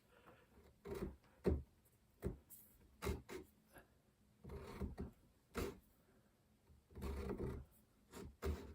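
Hand checkering tool scraping short strokes into a wooden gunstock, cutting checkering lines: about a dozen faint, irregular rasping strokes, some single and a few in quick short runs.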